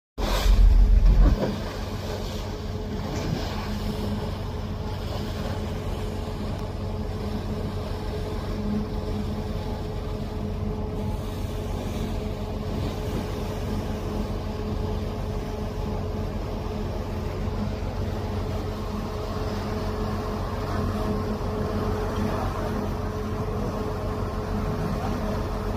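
Steady engine drone and rushing water as a pilot boat runs close alongside a ship's hull, its bow wave breaking against the side. A louder low rumble comes in the first second.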